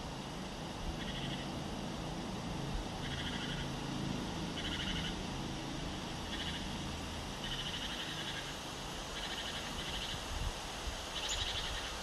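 Short, rapid trilled calls from an animal, repeated about once a second, each lasting under a second, over a steady low background hum.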